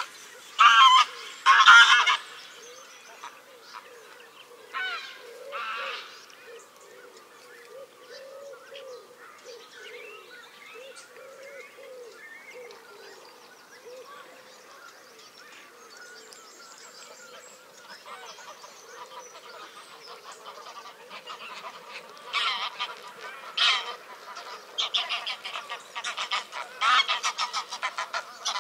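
A flock of Canada and greylag geese honking on the water: loud bursts of honks in the first few seconds, softer, lower calling through the middle, and the loud honking picking up again for the last several seconds.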